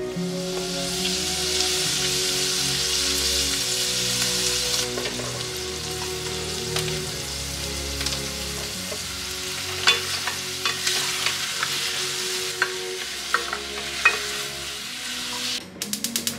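Chicken thigh pieces frying in butter in a stainless steel pot, giving a steady sizzling hiss. From about ten seconds in come a handful of sharp clicks and knocks of stirring.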